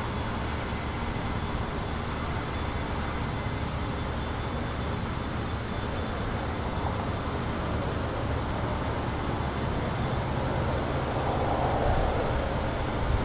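Steady outdoor background noise: a low rumble with hiss over it, growing slightly louder near the end.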